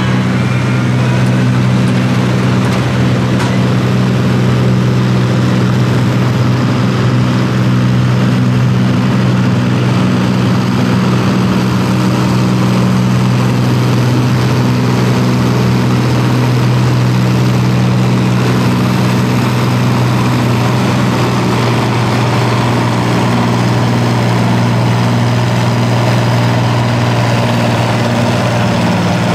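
Allis-Chalmers farm tractor's diesel engine running hard at a steady, unchanging pitch while it drags a weight-transfer sled in a farm stock tractor pull, held at stock engine speed under heavy load.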